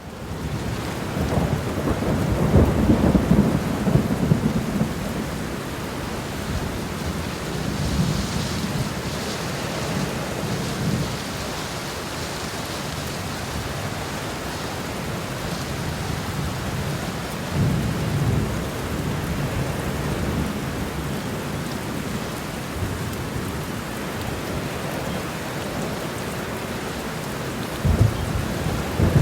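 Steady rain with low rolls of thunder: a long rumble in the first few seconds, another about two-thirds of the way through, and a short one near the end.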